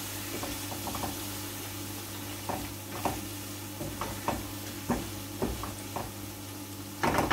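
Chicken and potato pieces sizzling in a nonstick wok while being fried (bhuna) with ground spices, a spatula stirring them with short scraping strokes against the pan. The strokes come about every half second from a couple of seconds in, and grow louder and quicker near the end.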